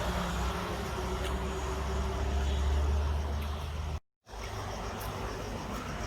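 Low, steady rumble of road traffic, building up about two to three seconds in, then cutting out to silence for a moment about four seconds in before resuming.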